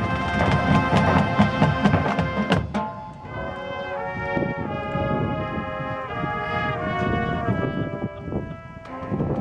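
High school marching band playing: the full band with drums for the first few seconds, then the brass holding a series of sustained chords that shift every second or so, with the full band and percussion coming back in near the end.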